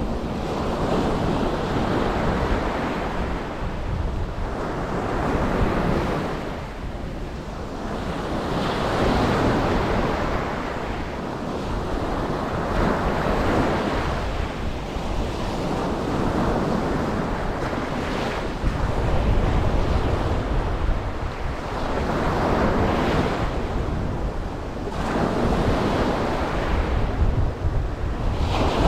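Ocean waves breaking on a beach, surging and receding every three to four seconds, with wind buffeting the microphone as a low rumble.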